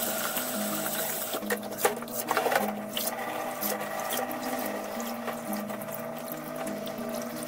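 Water splashing and dripping as hands slosh and squeeze boiled, rehydrated dried spinach in a basin of water and lift handfuls into a plastic colander.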